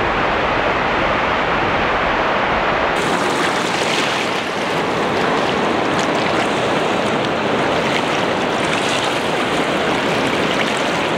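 Waterfall and the fast river current below it, a loud, steady rush of water that turns hissier from about three seconds in.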